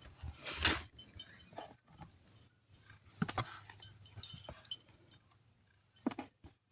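Small toy figures and their cards being handled and set in place: scattered light clicks, taps and rustles, with a longer rustle about half a second in.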